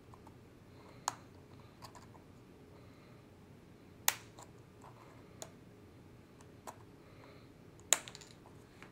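Sharp plastic clicks from MacBook Pro keycaps being pressed and handled on the keyboard. There are a handful of scattered single clicks, the two loudest about four and eight seconds in.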